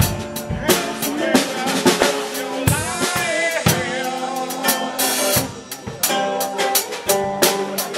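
Live band playing: a Pearl drum kit beating a steady rhythm on kick and snare under a strummed small acoustic guitar, with a man singing over it.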